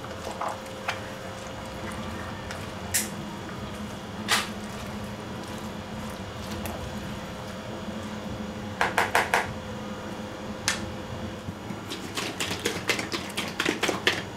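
A silicone spatula mixing a thick pasta salad in a large plastic bowl. It gives scattered knocks and clicks against the bowl, a quick run of four taps about nine seconds in, and a rapid flurry of clicks near the end. A faint steady hum runs underneath.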